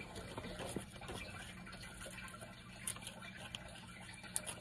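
Scissors cutting slips from a paper sheet, with paper handled and rustled: faint soft snips and rustles, a couple of short clicks, over a low steady hum.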